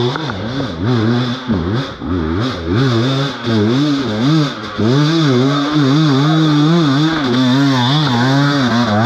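Dirt bike engine running close by, blipped up and down repeatedly for the first few seconds, then held at a steady, fast idle.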